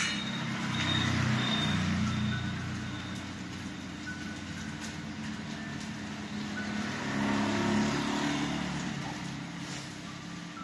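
Steady rain, with two motor vehicles passing by on the wet road, one about a second in and another around seven seconds in, each rising and then fading.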